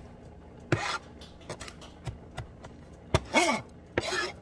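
Kitchen knife mincing garlic on a cutting board: scattered taps of the blade on the board and short scraping rasps of the blade across it. About three seconds in there is a sharp knock, then a brief voice-like sound that falls in pitch.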